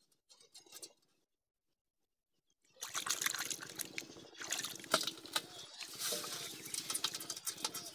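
Hands squelching and sloshing in wet mud and shallow water as they dig into a mud hole, a dense crackle of wet sucking and small splashes that starts about three seconds in after a short silence.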